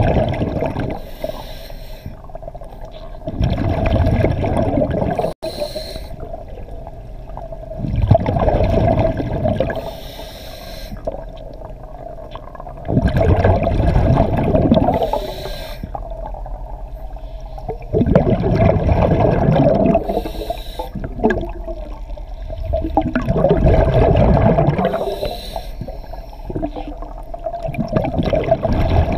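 Diver breathing underwater through a regulator: long rushes of breath and exhaled bubbles about every five seconds, over a steady hum.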